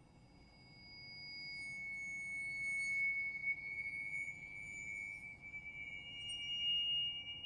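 Contemporary string quartet with Tibetan finger cymbals at the opening of a movement: a thin, high held tone fades in out of silence, with fainter higher tones shimmering above it for a while, and a second, higher held tone joins near the end.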